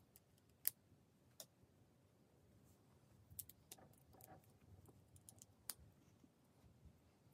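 Faint, scattered sharp plastic clicks, about a dozen in irregular bursts, with the loudest near the start, over near silence.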